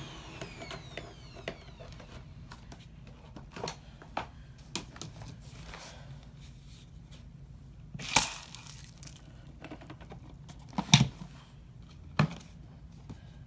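Scattered clicks, knocks and rustling from objects being handled, with louder knocks about eight seconds in and twice near the end.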